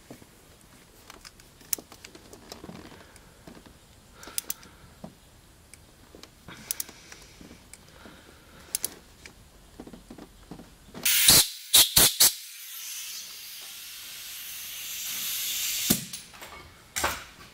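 Light metal clicks of a T-handle tap wrench working a screw extractor in a broken engine stud. About eleven seconds in come a few short squirts and then a long hiss from an aerosol can spraying fluid onto the stud. The hiss grows a little louder before cutting off sharply.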